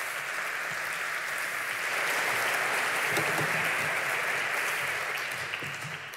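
Audience applauding, the clapping swelling and then dying away near the end.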